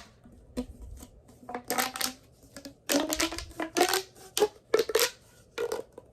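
Plastic pop tubes being stretched and squashed: a string of short, irregular pops and crackles, some with a brief ringing pitch.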